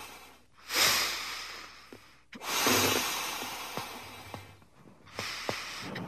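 A person blowing up a balloon by mouth: two long puffs of air, each starting hard and tapering off, and a third starting near the end, with a few faint clicks between them.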